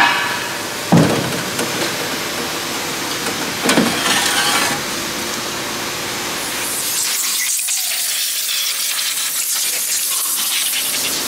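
Parts washer spraying an engine oil sump with a steady rush of water, with a couple of sharp metal knocks as the pan is handled. Near the end the low rumble drops away and a higher, thinner hiss is left.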